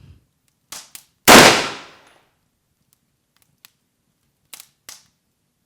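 A single loud gunshot about a second in, ringing down over most of a second: a test shot that uses up the gun's only bullet.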